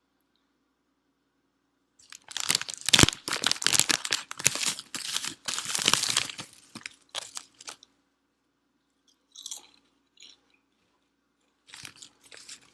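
Close-up crunching of potato chips being chewed, loud and dense for about six seconds starting about two seconds in, then a few faint mouth sounds, with crunching starting again near the end.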